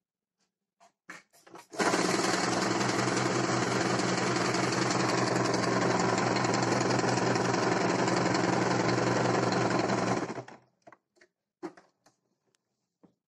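Small domestic sewing machine stitching through layers of cloth in one steady run of about eight seconds. It starts about two seconds in and stops near the end, with light clicks of the fabric being handled before and after.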